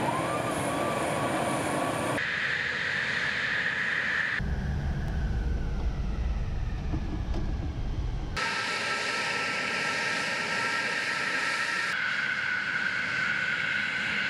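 Tu-22M3 bomber's twin Kuznetsov NK-25 turbofan engines running on the ground: a steady whine over rushing noise, changing abruptly at several cuts. Midway it is heard from inside the cockpit as a deep rumble.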